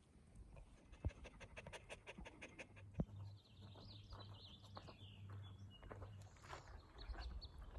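A dog panting fast and faintly, with a couple of light knocks; then small birds chirping faintly.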